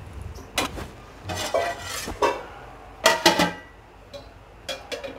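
Metal spoon knocking and scraping against an aluminium pot while rice is stirred in, then the aluminium lid clanking onto the pot: a handful of ringing metallic clanks, the loudest about three seconds in.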